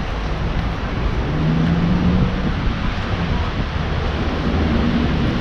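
Outdoor street ambience: steady wind rumble on the microphone over the wash of traffic.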